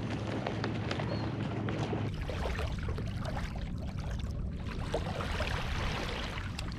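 Water lapping and splashing against a kayak hull, with many small scattered clicks and a steady low rumble of wind on the microphone.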